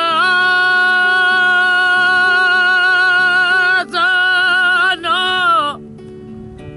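Music: a singer holds one long, steady high note, breaks off about four seconds in for two shorter phrases, then stops, leaving a low droning accompaniment.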